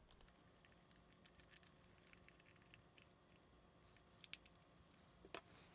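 Faint, scattered small clicks of a precision Phillips screwdriver and a tiny screw being worked into a camera body, with two sharper clicks a little past four and five seconds in.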